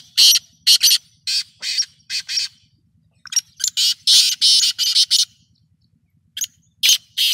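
Female black francolin (kala teetar) calling: a run of short, harsh, rasping notes, then a pause of about a second and a half before a few more near the end.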